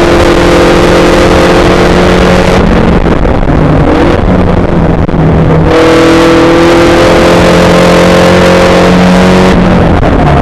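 Onboard sound of a Spec Racer Ford's 1.9-litre Ford four-cylinder engine at racing speed: a loud, steady full-throttle tone, a lift off the throttle a few seconds in for a corner, then back on the throttle with the pitch slowly climbing, and another lift near the end.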